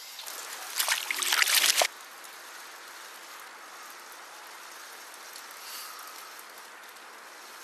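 A hooked northern pike thrashing and splashing at the water's surface on a lure for about two seconds, cutting off abruptly. Then a steady, even hiss of water.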